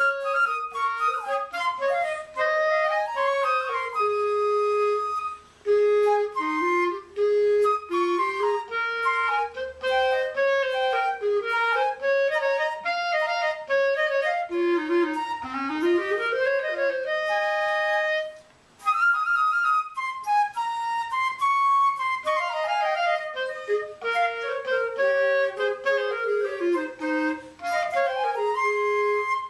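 Flute and clarinet playing a duet, two melodic lines moving together. The playing stops briefly twice, once about six seconds in and again a little past the middle.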